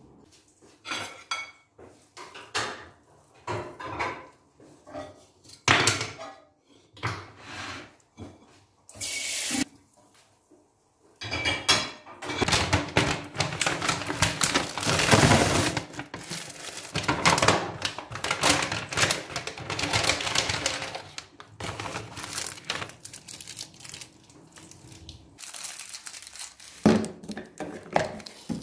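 Dishes and cutlery clinking and clattering as they are set one by one into a dishwasher's racks, then a kitchen tap running steadily into a stainless steel sink for about ten seconds while a plastic food container is rinsed. Near the end, a sharp plastic snap of the dishwasher's detergent dispenser lid.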